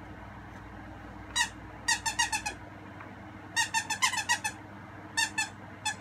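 Squeaky plush dog toy squeezed by hand, giving short runs of brief squeaks all at the same pitch, several runs in a row.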